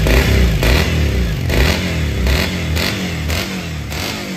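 Triumph motorcycle engine running through its freshly repaired, re-welded exhaust silencer, with a pulsing beat about twice a second. It eases off and gets quieter near the end.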